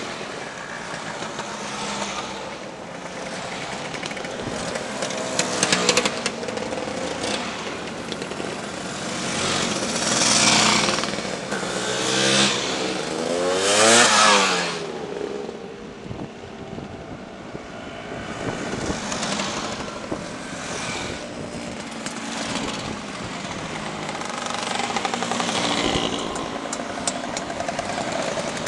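A procession of motor scooters riding past one after another, each engine's buzz rising and falling as it goes by. The loudest pass is about halfway through, its pitch sweeping up and then dropping away.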